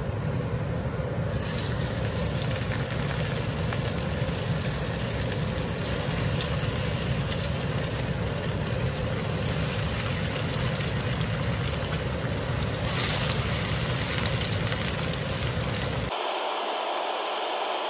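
Masala-coated fish fillets sizzling as they shallow-fry in hot oil in a frying pan, a steady hiss over a low hum. The hum cuts off abruptly near the end.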